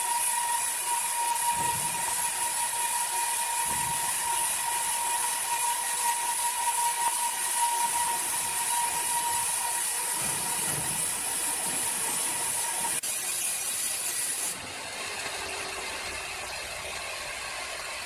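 Horizontal band sawmill cutting lengthwise through a large hardwood log: a steady hiss with a thin, steady whine from the running blade. The whine stops a little past two-thirds of the way through, and the hiss then drops lower and quieter.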